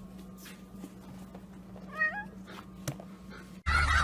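A single short animal call, meow-like and rising in pitch, about halfway through, over a faint steady hum and a few light clicks. Near the end, louder noise starts abruptly.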